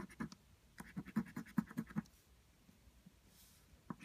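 Scratch-off lottery ticket being scratched in quick strokes, about eight a second, in a short burst and then a longer run, pausing for a moment before scratching starts again near the end.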